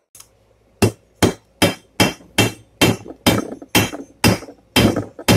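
Hand hammer striking red-hot rebar on an anvil, forging a half of a pair of blacksmith tongs. The blows start about a second in and keep an even pace of about two and a half a second, each with a short metallic ring.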